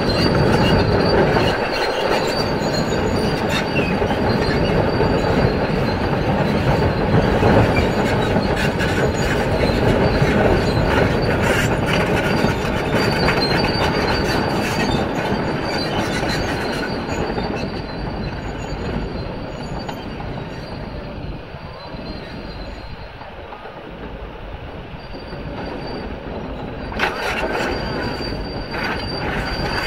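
Kobelco SK500LC tracked excavator on the move, its steel tracks squealing and clanking under the diesel engine noise. The noise eases off after about seventeen seconds and comes back up near the end.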